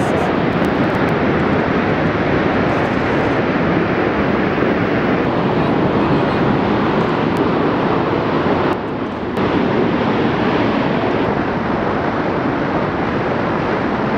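Steady, loud rushing roar of steam and volcanic gas venting from Mount Bromo's active crater. It dips briefly about nine seconds in.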